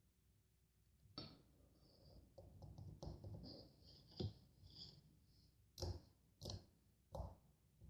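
Small objects being handled close up: a run of irregular clicks and knocks, with the sharpest ones about a second in, at about four seconds, and three near the end, and faint high squeaks in the middle.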